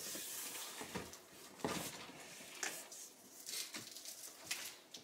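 Packaging being handled in a large cardboard box: faint, scattered rustles and light taps as plastic-bagged items and cardboard are moved.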